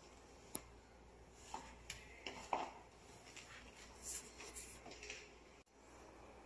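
Light clinks and knocks of a steel food bowl on a tile floor as a cat paws and tugs at a large whole fish lying on it, with a sharp click about half a second in and short scraping sounds later on.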